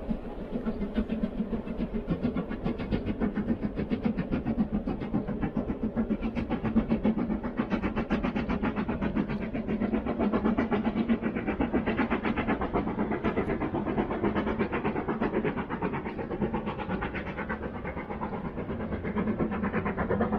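The Jacobite's steam locomotive hauling its passenger train past, with a rapid, regular beat that carries on steadily.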